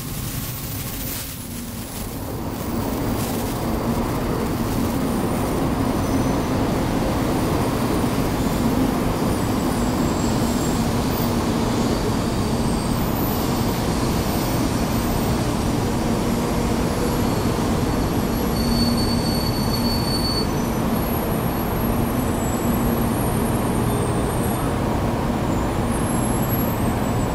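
A Taiwan High Speed Rail 700T electric train arrives on an underground station platform. Its rumble builds about two seconds in, then holds steady as the cars roll past slowing, with thin high squeals over the top.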